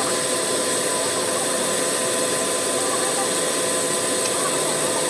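Steady, unchanging machinery noise with constant hums, as from woodworking factory machines running continuously.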